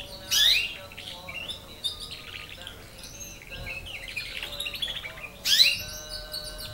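Domestic canary singing: a loud rising whistled sweep about half a second in and another near the end, with quieter twittering trills between them.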